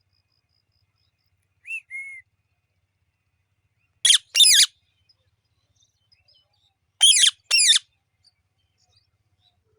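A pet parrot gives two short whistled notes, then two pairs of loud, shrill calls about three seconds apart.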